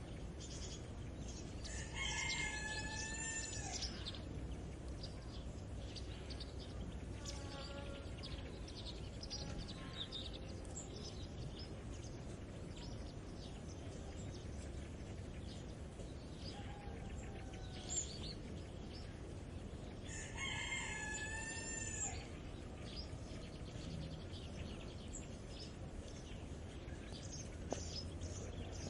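A rooster crowing twice, each crow about two seconds long, the second about eighteen seconds after the first. Small birds chirp here and there over a steady low rumble.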